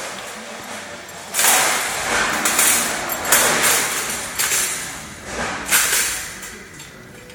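Steel shelf being slid down into the cart's metal uprights: a run of loud metal-on-metal scrapes and clanks, starting about a second in and dying away near the end.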